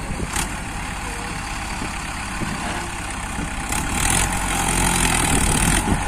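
Diesel engines of a Mahindra Arjun 555 DI tractor and a JCB 3DX backhoe loader running under load as the backhoe helps free the mud-stuck, loaded trolley. The engine sound grows louder about four seconds in.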